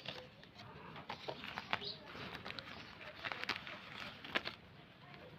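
Paper and plastic packaging from a microphone box handled by hand: scattered light clicks and rustles as the cards and pouches inside are taken out.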